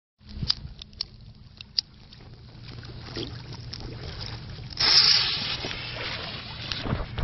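Firework fuse on a Black Cat Neon Master Missiles pack being lit: a few faint clicks, then a hiss that builds and flares loudly about five seconds in as the fuse catches, then a steady fizzing hiss as it burns, over a low steady hum.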